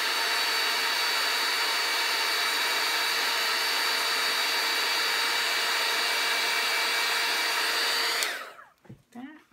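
Small corded handheld dryer blowing steadily, a rush of air with a steady motor whine over it. It is switched off about eight seconds in and winds down.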